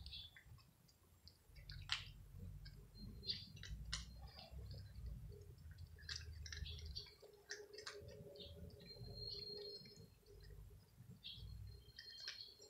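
Cats chewing dry kibble: faint, irregular crisp crunches and clicks.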